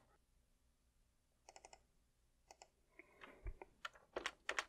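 Computer keyboard typing: a few scattered key clicks about a second and a half in, then quicker, louder clicks toward the end.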